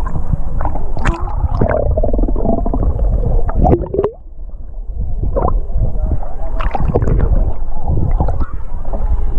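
Muffled underwater sound of shallow sea water heard through a submerged action-camera housing: a heavy low rumble of moving water with scattered clicks and knocks.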